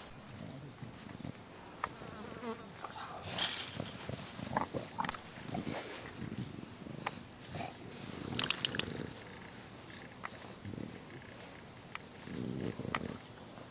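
English bulldog puppies grunting and breathing noisily, in irregular low rasps, with scattered clicks and knocks and two brief sharper noises, about three and a half and eight and a half seconds in.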